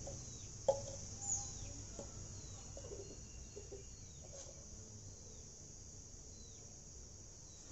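Faint bird chirps: short, high, falling notes repeated every second or so. A light click and a soft knock come within the first couple of seconds.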